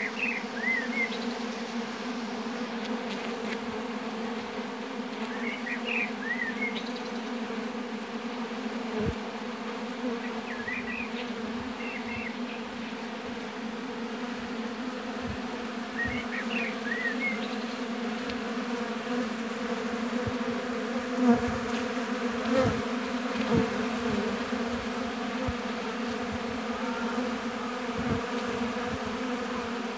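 Honey bees buzzing around hives in a steady hum of many wings, with a low drone and its overtone. A few sharper knocks and louder moments come about two-thirds of the way through.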